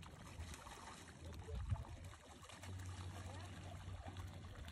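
Water splashing and churning at the surface as a dense school of jack crevalle, catfish and barracuda thrashes in a feeding frenzy, over a low steady rumble.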